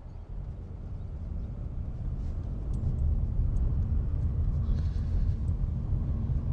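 Car engine and tyre rumble heard from inside the cabin as the car pulls away from a stop and gathers speed, growing louder over the first three seconds and then holding steady.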